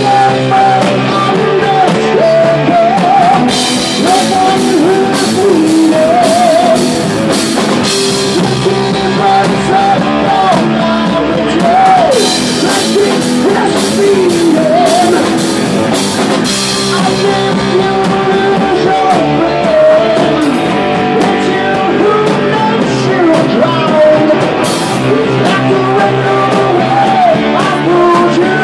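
Loud live rock band: a man sings into a microphone over electric guitars and a drum kit with crashing cymbals.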